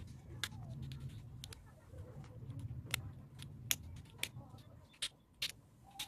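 About seven sharp clicks and taps at uneven spacing as a small black plastic washing-machine switch housing is handled and worked on by hand, over a low steady hum.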